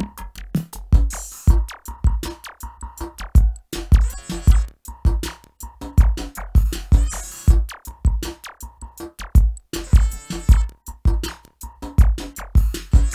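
Electronic music from an M-Audio Venom synthesizer: a drum-machine beat of deep kick hits and fast clicks over a held synth tone, with a burst of hissing noise about every three seconds.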